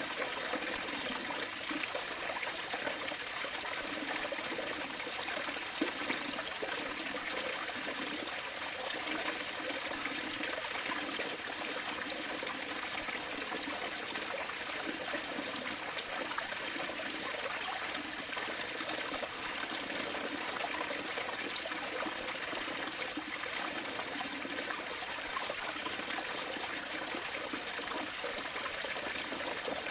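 Steady running water, like a trickling stream, unbroken throughout.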